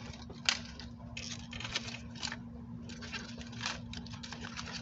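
Small ground-spinner fireworks fizzing and crackling in short, irregular bursts, with one sharp pop about half a second in.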